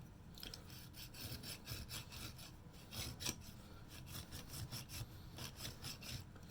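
Quick, irregular back-and-forth scraping strokes of hand abrasive work on an espresso machine's boiler cap, cleaning residue and chipped material off its edge.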